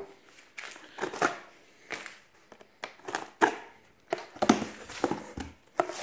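Cardboard box being cut open with a kitchen knife and its flaps pulled back: a string of short scrapes, knocks and rustles of cardboard and plastic wrap, with quiet gaps between.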